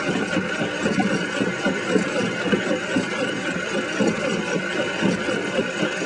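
Compound planetary pendulum inertial drive running, its rotating mechanism giving a steady mechanical running noise with a constant irregular rattle.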